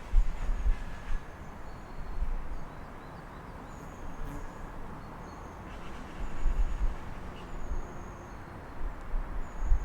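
Morning city ambience heard through an open apartment window: a steady low rumble of traffic, with birds chirping in short, high calls throughout.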